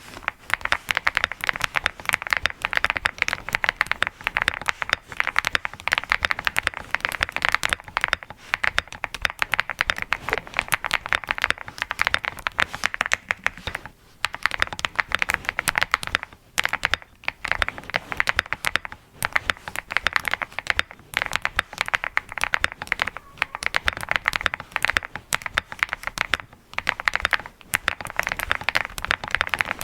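Fast continuous typing on an Angry Miao Cyberboard R4 mechanical keyboard with redwine switches and HSA-profile keycaps, a quick run of key clacks with a few brief pauses.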